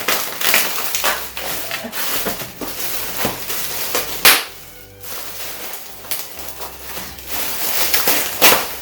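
Packaging rustling and crackling as things are unwrapped and handled, with sharp crackles about four and about eight and a half seconds in.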